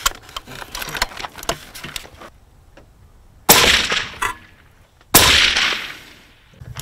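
Two suppressed shots from a Howa .308 bolt-action rifle, about a second and a half apart, each a sharp crack that dies away quickly, fired while sighting in the rifle.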